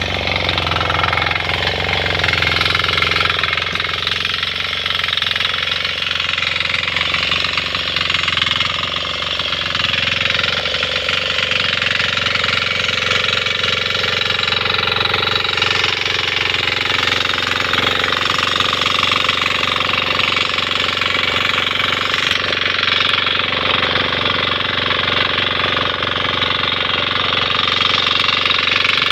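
6 hp single-cylinder diesel engine of a walk-behind power weeder running steadily under load as the weeder cultivates the soil.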